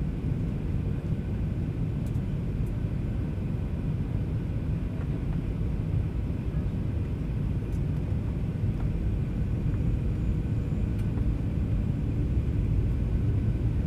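Steady in-flight cabin rumble of a Boeing 737-800, from its engines and the airflow over the fuselage, growing slightly louder toward the end.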